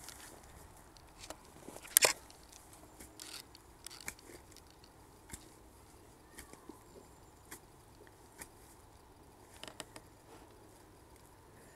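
Spade digging into earth and roots: scattered scrapes and crunches, with one sharp crack about two seconds in.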